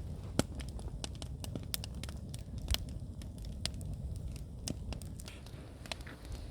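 Firewood fire crackling, with irregular sharp snaps and pops over a steady low rumble.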